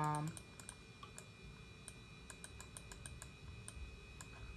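Light, irregular clicking of a computer mouse button, single clicks and quick runs of two or three, as a window's scroll arrow is clicked.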